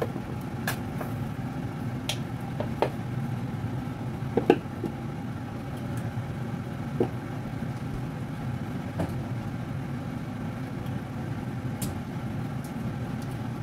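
Steady low hum of a running kitchen appliance, with a few light clicks and knocks of utensils, the sharpest about four and a half seconds in.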